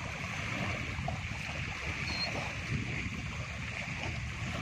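Shallow sea water lapping and sloshing at the shoreline, with wind rumbling on the microphone, steady throughout. A brief high chirp sounds about two seconds in.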